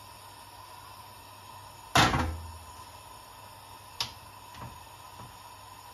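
A single hard knock about two seconds in, ringing briefly, then a lighter click about two seconds later and two faint taps, over a steady faint hum.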